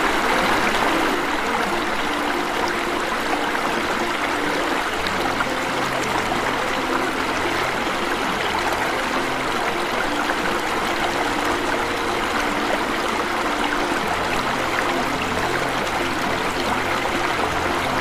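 Steady rushing and splashing of a small waterfall spilling into a rocky pool.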